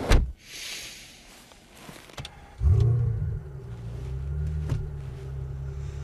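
A sharp thump and a few small clicks, then about halfway through the Peugeot 208 GTi's turbocharged 1.6-litre four-cylinder engine starts with a brief flare of revs and settles into a steady low idle.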